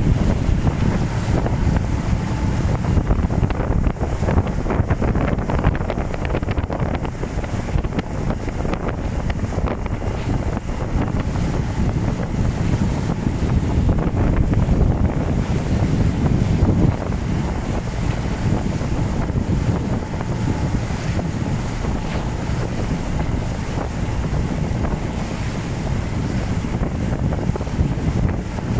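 Wind buffeting the microphone over rushing, splashing water, a steady loud noise heaviest in the low end.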